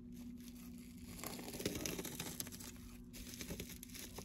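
Faint rustling and tearing of packaging as a parcel is unwrapped by hand, in irregular scraps with a few small clicks, over a steady low hum.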